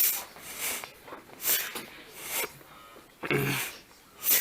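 Repeated short rasping strokes, roughly two a second, with a brief low grunt-like sound about three seconds in.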